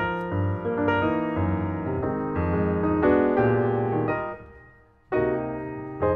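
Background piano music, a melody of separate struck notes; it dies away about four and a half seconds in and starts again near the end.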